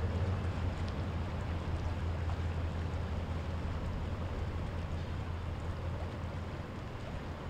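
A motorboat's engine running with a steady low drone that fades slowly, over an even hiss.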